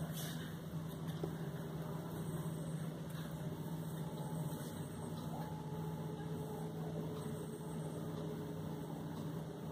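A steady low hum with even background hiss and no distinct events.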